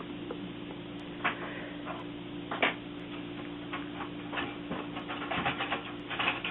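Packaging being handled and pulled away from a computer case: scattered rustles and scrapes, thickest near the end. Under it a clock ticks once a second over a steady low hum.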